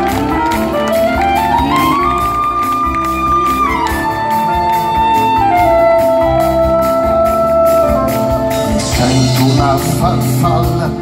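Live jazz band playing: a lead line of long held notes that glide up and then step back down, over bass and drums.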